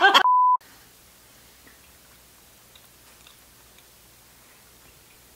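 Laughter cut off by a short, loud, steady censor beep, then faint chewing and small mouth clicks as two people eat a soft bread bun.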